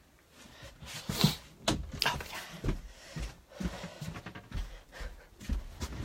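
Irregular knocks, clicks and rustles of a phone being handled while its holder walks, with a sharp knock about a second in.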